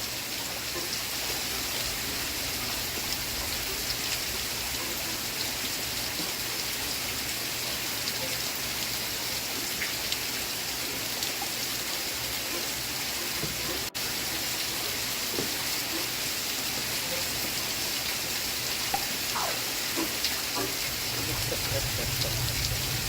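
Steady rain falling, an even hiss of drops that cuts out for an instant about halfway through.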